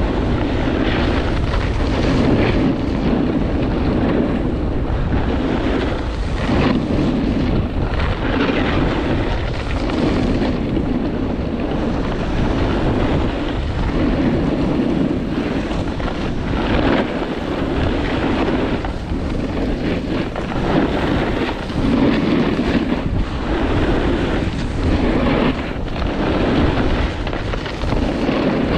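A snowboard carving down a groomed run: the board's edge scrapes over the snow, swelling with each turn every second or two, under steady wind noise on the microphone.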